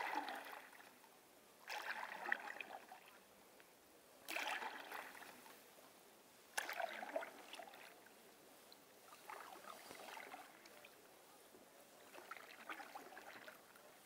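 Canoe paddle strokes in calm lake water: six splashing, dripping strokes about two and a half seconds apart, the last two softer.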